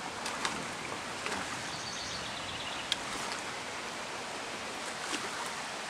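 Steady wash of running floodwater in a swollen woodland creek, with scattered light rustles and one sharp snap about three seconds in.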